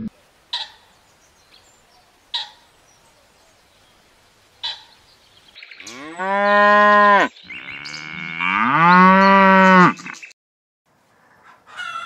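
Cow mooing: two long moos, the second one rising in pitch at its start and held longer. Three short, sharp calls come before them.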